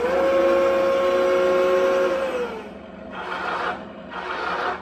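Tongde 1/16 M60A3 RC tank's electric drive motors and gearboxes whining as it turns on its tracks, with a steady two-note whine that glides down as it stops after about two seconds. This is followed by two short bursts of motor whine.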